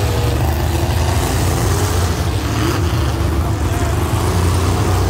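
Super stock demolition derby cars' engines running and revving together, a loud steady rumble whose pitch rises and falls as the drivers work the throttle.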